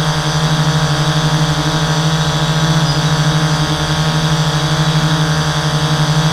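Hexacopter's six electric motors and 11-inch propellers humming steadily in a hover, heard close up from the camera mounted on its frame. The hum wavers slightly and evenly in loudness as the rotors beat against each other.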